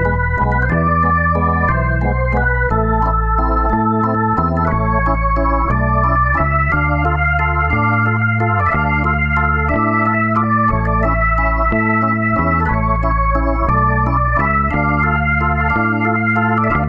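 Background music: an electronic organ or keyboard playing sustained chords over a moving bass line.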